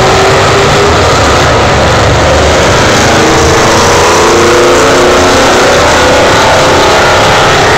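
Car doing a burnout: its engine revs hard and stays high while the rear tyres spin and smoke on the track. The sound is loud and constant, with the engine pitch wavering up and down.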